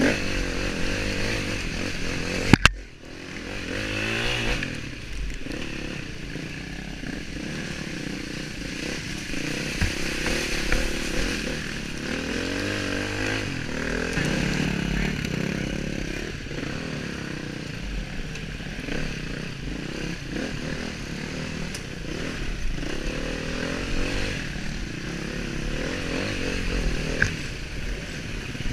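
KTM dirt bike engine running under the rider, revving up and down as it works over a muddy, rocky trail. A sharp knock about two and a half seconds in.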